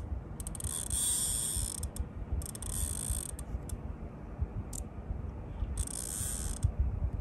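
Fishing reel's drag buzzing in short spurts of about a second as a hooked fish that is still fighting pulls line off the reel. A few single clicks come between the spurts, over a low rumble.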